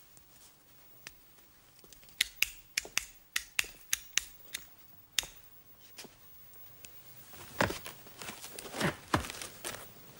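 A run of sharp, irregular clicks and taps for a few seconds. About two-thirds of the way in come creaks and rustling as a man drops onto a cane-backed sofa.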